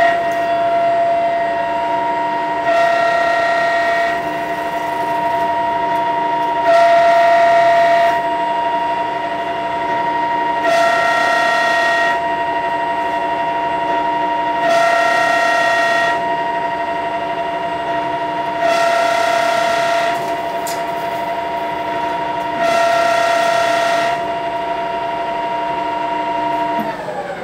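Lathe running an automatic thread-cutting cycle on a 3-inch NPT taper pipe thread: a steady motor whine with several fixed tones, joined about every four seconds by a louder burst of higher tones lasting just over a second as each threading pass runs. Near the end the pitch drops as the spindle winds down and the cycle finishes.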